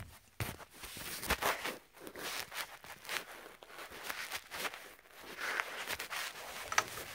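Water running from the drain valve of a central-heating magnetic dirt filter into a small cup, an irregular scratchy hiss mixed with the rustle of hands and the phone being handled.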